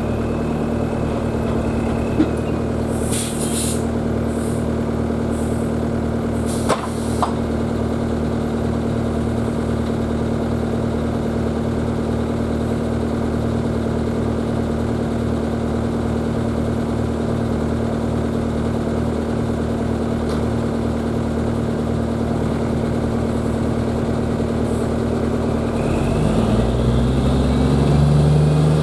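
Peterbilt 359 dump truck's diesel engine running steadily, with a few short hisses about three seconds in. Near the end the engine revs rise and fall.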